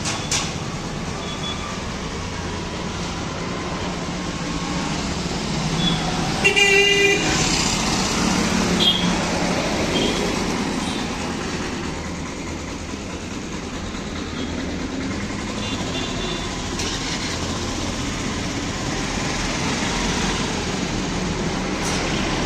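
Steady street traffic noise, with a vehicle horn honking once, briefly, about six and a half seconds in.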